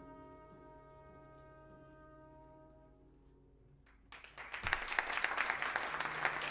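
A jazz quartet's final held chord, a trumpet note over piano and bass, dies away over about three seconds; after a brief hush the audience breaks into applause about four seconds in.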